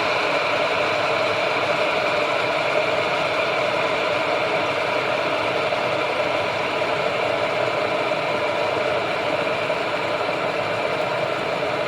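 Water at a steady rolling boil in a 1500 W borosilicate-glass electric kettle, a continuous bubbling rumble and rattle that does not let up. The kettle keeps boiling because its auto shut-off is not cutting in.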